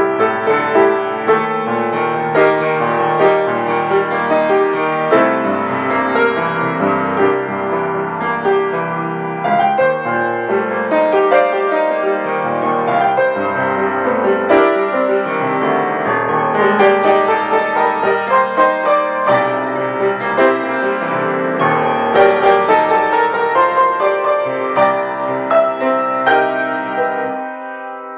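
Piano improvisation, played with both hands: a continuous, flowing passage of many overlapping notes and chords, easing off slightly near the end.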